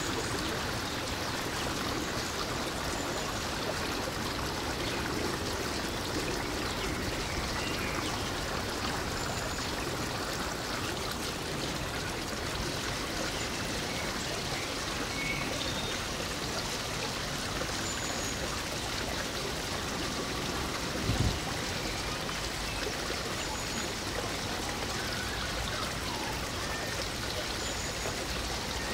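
Steady rushing noise of running water, with a few faint high chirps and a single low thump a little past two-thirds of the way through.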